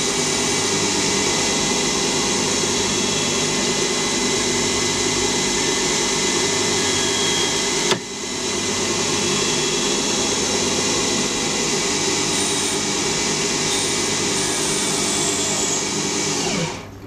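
Small CNC lathe running, its spindle turning a Victorian Ash timber workpiece while a carbide insert cuts it: a steady machine whine with a hiss of cutting. Near the end the sound falls in pitch and drops away as the spindle slows.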